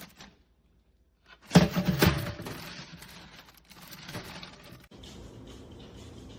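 Knocks and clatter from handling a stainless steel percolator coffee urn. A loud burst comes about a second and a half in and fades, and a few lighter knocks follow.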